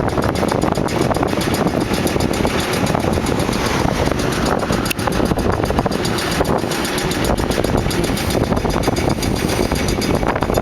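Engine of heavy demolition machinery running steadily, with wind noise on the microphone.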